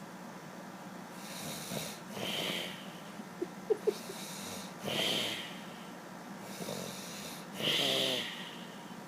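A man snoring in his sleep, three long rattling snores about three seconds apart, the last with a fluttering buzz. Between the first two snores comes a quick cluster of short sharp sounds, the loudest thing heard.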